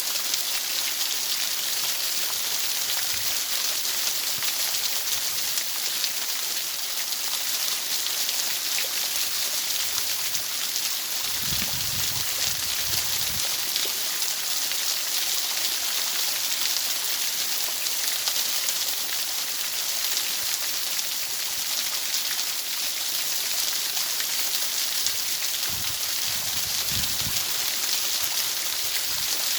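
Steady, even hiss of white masking noise, strongest in the high range and sounding much like heavy rain. Faint low rumbles come about twelve seconds in and again near the end.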